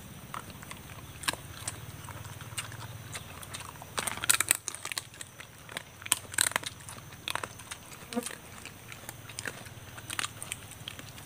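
Close-up eating sounds: roasted chicken torn apart by hand and chewed, a run of wet, sharp clicks and crunches, loudest in two clusters about four and six seconds in, over a steady low hum.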